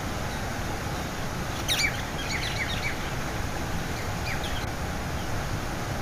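Steady rush of an artificial curtain waterfall pouring down into a stream. A bird chirps a quick run of short calls about two seconds in, and a couple more a little later.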